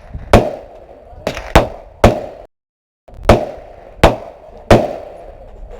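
Gunshots at a shooting range: about seven sharp reports at uneven intervals, each with a short echoing tail.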